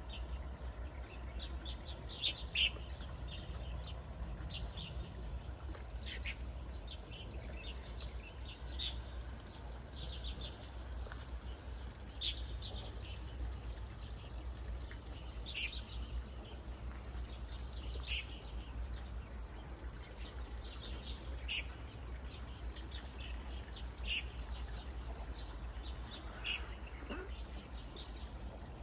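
Outdoor ambience: a steady high insect trill with short bird chirps scattered every second or two, over a low steady rumble.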